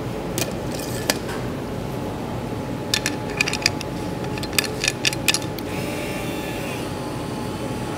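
Hand caulking gun being loaded with a Sikaflex sealant cartridge: a couple of separate metal clicks, then a quick run of sharp clicks and clacks a few seconds in, over a steady workshop hum.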